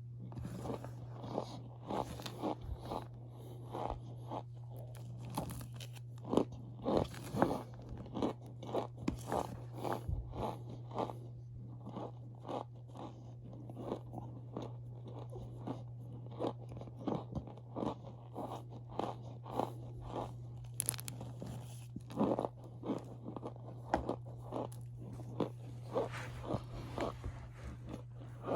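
Packed cornstarch being pressed and crushed, giving a quick, irregular run of squeaky crunches with a few louder clusters.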